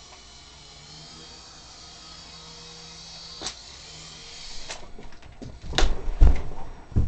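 Small remote-control toy helicopter's rotor whining steadily, with a knock about three and a half seconds in. The whine stops, and a clatter and several heavy thuds follow as a man tumbles off his stool onto the floor; the thuds are the loudest part.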